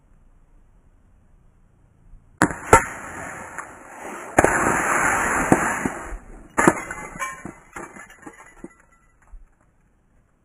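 A pellet strikes an aerosol body-spray can about two and a half seconds in, and the pressurised spray hisses out in loud gushes. A couple of knocks follow as the punctured can tumbles off the rock onto the phone, and the hissing dies away with a few small ticks.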